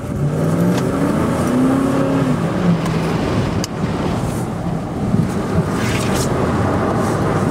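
Big truck's engine heard from inside the cab, revving up over the first two seconds and then easing back to a steady run as the truck rolls through the turns. Two brief sharp clicks come through partway along.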